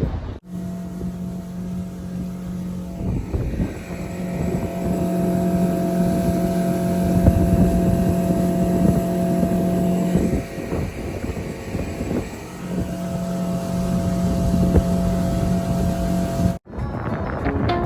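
Boat motor running at a steady speed under way, its hum fading and returning a couple of times, with wind on the microphone.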